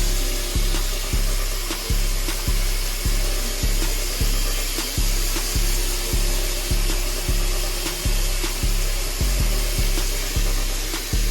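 Background hip-hop beat with a deep bass hit repeating about every 0.6 seconds, over a steady high hiss.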